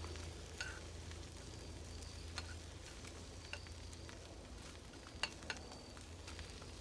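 Chopped onions sizzling in a frying pan on a propane camp burner while being stirred, with a few sharp metal clicks of tongs against the pan.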